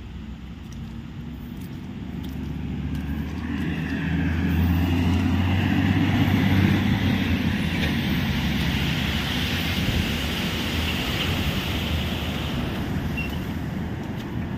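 Heavy diesel machinery running with a deep, steady engine note. It grows louder over the first few seconds to a peak about six seconds in, then slowly eases off.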